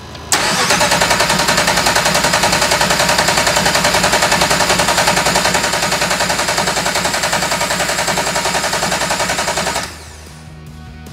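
Starter motor cranking the Ferrari V8 in the Alfa 105, turning it over in an even pulse of about seven beats a second without the engine catching, then stopping abruptly near the end. The engine fails to fire because the ECU is getting no signal from the factory Ferrari cam sensors.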